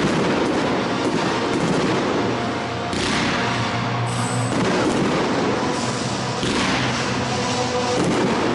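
Aerial firework shells bursting overhead, a heavy bang every few seconds (at the start, about three seconds in, and twice near the end), over music playing on loudspeakers.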